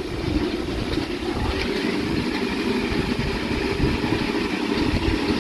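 Steady vehicle running noise, a constant low engine drone with road rumble, and wind buffeting the microphone.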